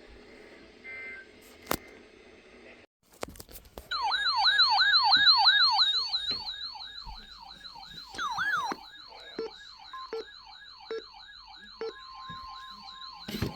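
Weather radio alert alarm sounding: a siren-like warble of falling sweeps, about three a second, loudest at first and then softer. A steady alert tone comes in near the end.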